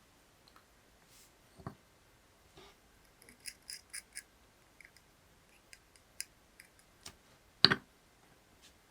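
Small objects handled on a hard surface: scattered light clicks and ticks, with a quick run of small clicks a few seconds in and two knocks, the louder one near the end.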